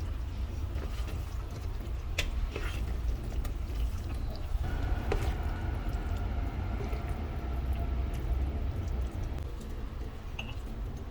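Water running or pouring, with a steady low rumble and a few sharp clicks.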